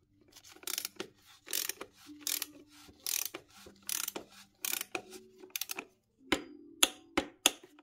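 Ratchet wrench clicking in short runs, about one run a second, on its back-strokes as it tightens the oil filter housing cap of a Mercedes M272 V6 to torque. A few single sharp clicks near the end.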